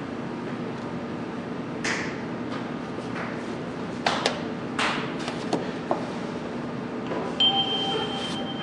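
Library self-checkout station in use: a few short clicks and knocks as items are handled on the unit, then a steady high electronic beep that starts near the end, over a low machine hum.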